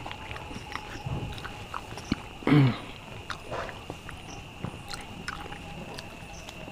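Close-miked eating sounds of rice and dal eaten by hand: chewing, small mouth clicks and the squish of fingers mixing wet rice. One short, louder sound from the throat comes about two and a half seconds in.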